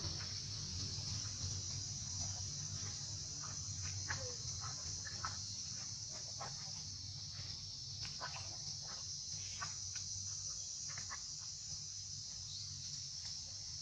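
Steady high-pitched drone of insects, with a low steady hum underneath and scattered short ticks and rustles.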